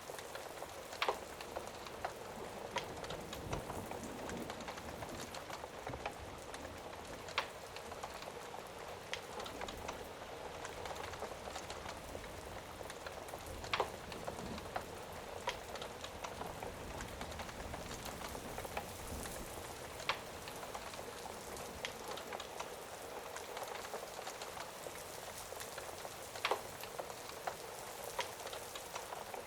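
Steady rain ambience mixed with the pops of a crackling fire, a sharp click every few seconds over the even hiss of the rain.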